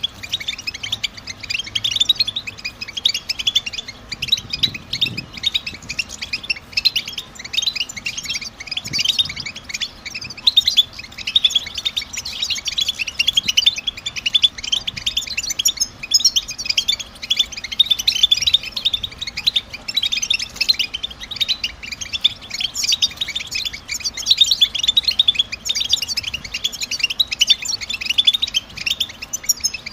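European goldfinch twittering: a dense, unbroken stream of quick, high chirps. This is the rapid contact twitter that goldfinch keepers call 'batbata'.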